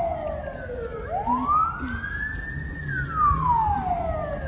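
Fire engine siren wailing: a slow rise-and-fall tone that climbs in about a second and sinks over about two, with one full cycle and the start of the next.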